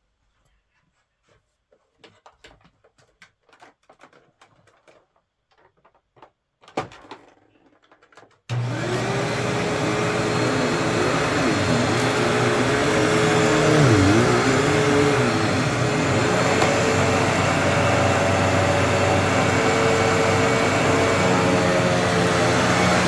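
Faint clicks and handling noises with one sharper click, then a vacuum cleaner switches on abruptly about eight seconds in and runs steadily, its pitch dipping and wavering briefly partway through.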